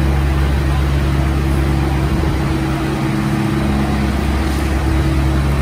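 A diesel engine idling steadily, a low, even drone of several tones.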